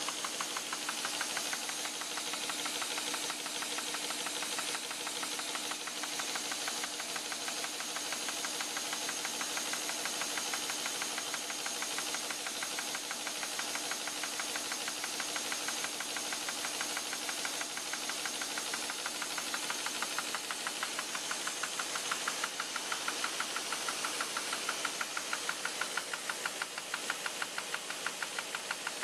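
Curtius envelope-making machine with an RA-WA feeder running, a fast, even mechanical clatter over a steady hum and a faint high whine.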